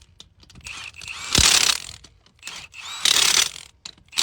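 Impact wrench with a torque stick hammering lug nuts snug on a van wheel, in two short bursts about a second and a half apart, with small clicks between them.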